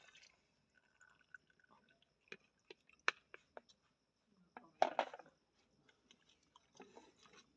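Dissolved custard mix being emptied from a plastic tub into a steel pot of milk: faint liquid pouring with scattered clicks and knocks of the tub and spoon against the pot, the loudest cluster about five seconds in, then a spoon stirring in the milk near the end.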